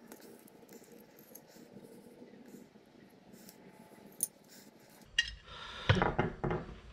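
Faint small clicks and scrapes of a screwdriver working a rubber grommet into a drilled hole. About five seconds in, louder handling and rustling with a few sharp knocks.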